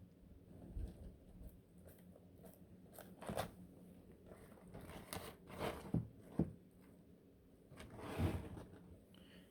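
Iguana biting and tearing into a collard green leaf: a handful of faint, separate crunching bites, the loudest pair about six seconds in.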